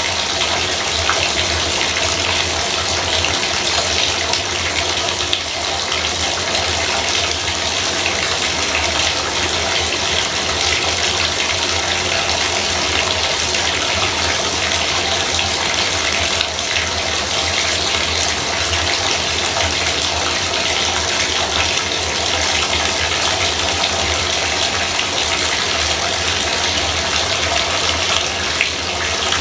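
Bathtub faucet running water steadily, a loud even rush of water without pause.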